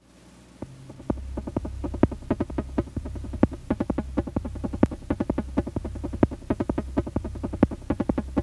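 Electronic synthesizer sounds: rapid, irregular clicking blips over a low bass drone that changes pitch in steps, fading in from silence at the start.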